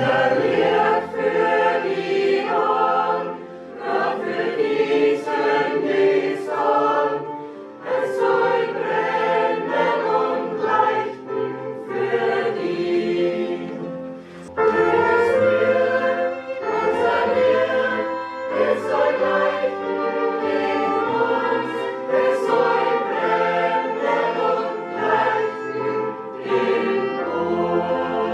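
Mixed choir singing a hymn with violin accompaniment, in phrases of a few seconds each.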